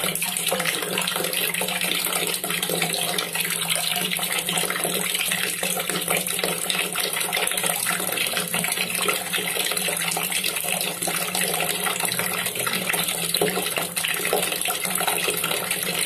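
A steady stream of water pouring into a container already full of water, splashing continuously on the surface.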